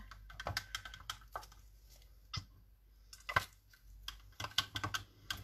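Acrylic paint being stirred in a plastic cup to thin it for pouring: scattered light clicks and taps of the stirring stick against the cup, sparse at first and coming faster near the end.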